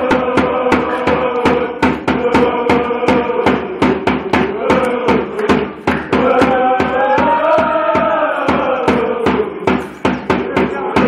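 Group of football ultras chanting a song together in unison, loud and steady, with a drum beating a regular rhythm under the voices.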